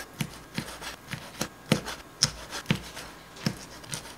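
Wide-bladed kitchen knife chopping squid on a plastic cutting board: a steady run of short knocks, about three a second, some louder than others.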